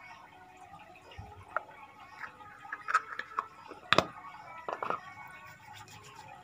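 A few sharp clicks and taps over faint background noise, the loudest about four seconds in.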